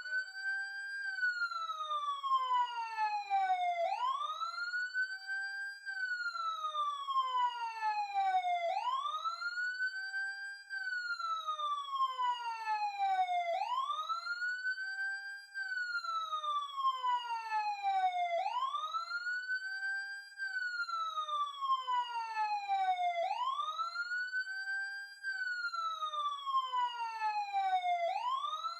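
Wailing siren sound effect. Its pitch climbs quickly, holds briefly at the top, then slides slowly down before climbing again, about once every five seconds, six cycles in all.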